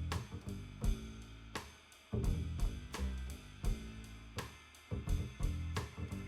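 Background music with a steady drum beat over low bass notes.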